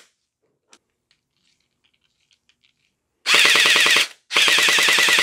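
Rebuilt Splat-R-Ball gel blaster gearbox with metal gears and the stock spring, firing on full auto: the motor and gears cycle the piston in a rapid rattle. After a pause with a few faint clicks it fires a short burst about three seconds in, then a longer burst after a brief gap.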